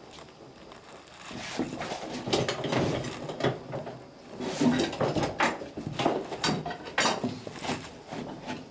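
Irregular wooden knocks, clicks and scraping of a freshly steamed oak rib being bent and pressed down into a clinker dinghy's hull against the planks, starting about a second in.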